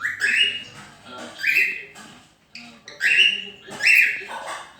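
A pet animal making loud, short, high calls, four in a row about a second apart.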